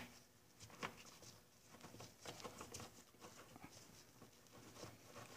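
Near silence with faint, scattered small clicks and taps: gloved hands working a hand tool against an outboard motor's midsection housing.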